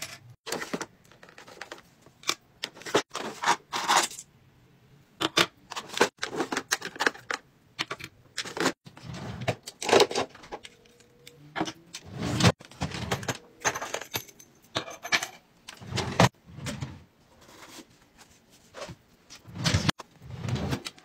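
Self-defense keychain pieces being handled: plastic keychain parts clattering and metal key rings jangling in short, irregular rattles and clicks as they are picked out of bins and drawers.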